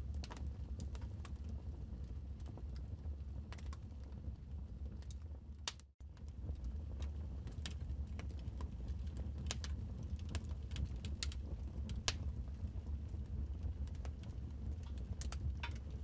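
Wood fire crackling in a fireplace: irregular sharp pops and snaps over a steady low rumble, with a momentary cut in the sound about six seconds in.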